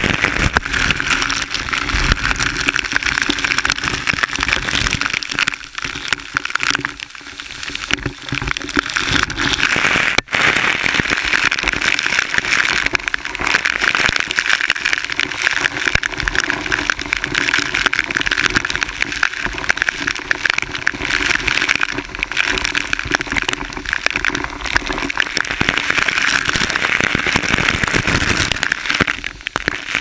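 Waterfall water rushing and spattering close by, a loud dense crackling hiss like heavy rain on a surface.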